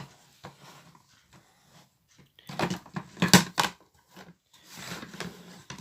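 Plastic housing of a Bluetooth speaker being pulled and pried apart by hand: scattered clicks and scraping, with a cluster of sharper clicks and knocks about two and a half to three and a half seconds in and a softer rustle near the end.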